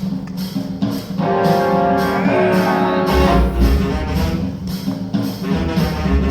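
Show music with a steady beat; sustained instrumental notes come in about a second in, and deep bass notes join from about three seconds in.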